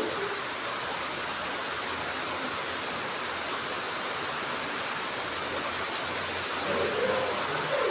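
Steady rainfall, an even hiss of rain falling and striking surfaces.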